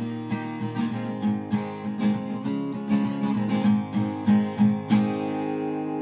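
Outro music on acoustic guitar, strummed and picked, ending on a chord left to ring about five seconds in.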